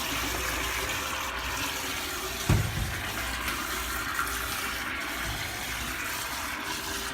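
Toilet flushing continuously with a steady rush of water: a flush that won't stop. A single low thump sounds about two and a half seconds in.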